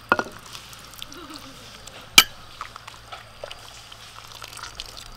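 Metal ladle clinking and scraping against cooking pots as soup is ladled out: a sharp clink just after the start and a louder one about two seconds in, with lighter knocks between.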